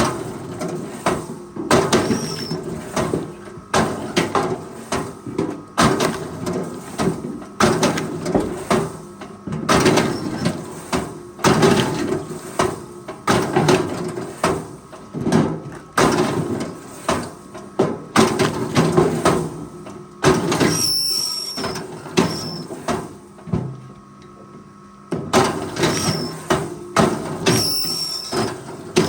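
Forestry machine at work: its engine runs steadily under irregular clunks and knocks of metal and wood, with a few short high squeaks. The clatter eases briefly near the end.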